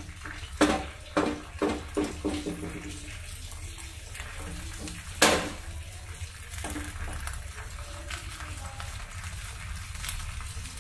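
Banana-leaf fish parcels being handled and set into a nonstick frying pan of coconut oil: a quick run of knocks and rustles in the first couple of seconds, one loud knock about five seconds in as a parcel goes into the pan, and a few softer ones later, over a steady low hum and faint hiss.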